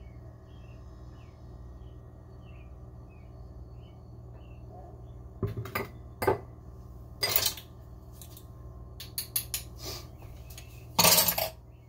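Kitchen utensils clinking and clattering as a measuring spoon and an olive oil bottle are handled and set down on the counter: scattered clicks from about five seconds in, and a louder clatter near the end. Faint repeated bird chirps and a steady low hum sit underneath in the first few seconds.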